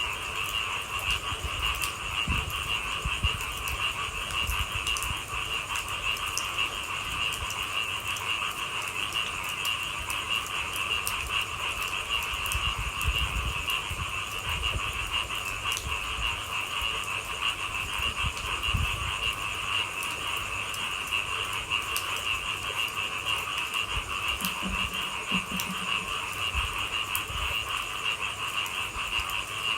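A steady chorus of frogs calling together at night, over a scattering of fine ticks from light rain and irregular low thuds.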